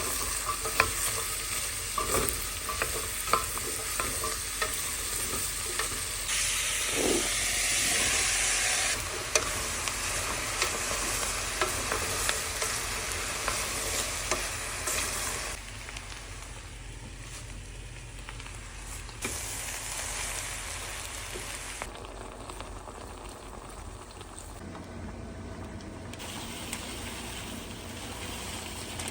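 Food sizzling in a pot or pan while being stirred, with sharp clicks of the utensil against the cookware. It comes in several short cuts, one after another, louder in the first half and quieter after about 15 seconds.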